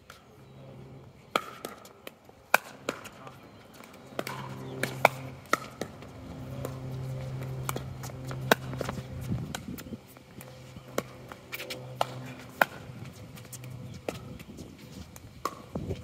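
Pickleball rally: sharp pops of paddles hitting a hollow plastic pickleball, mixed with the ball bouncing on the hard court, about a dozen at irregular intervals roughly a second apart.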